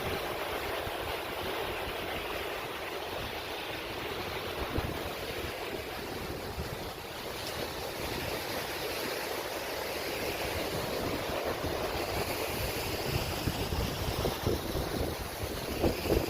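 Ocean surf washing steadily, with wind rumbling on the microphone and a few louder gusts near the end.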